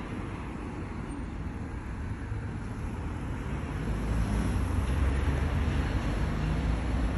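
Steady low outdoor rumble that grows louder about four seconds in.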